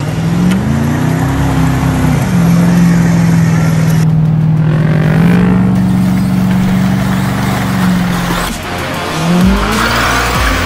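An engine revving, laid over the picture as a sound effect. Its pitch glides up at the start, holds steady, steps higher about five seconds in, drops away, then climbs again near the end.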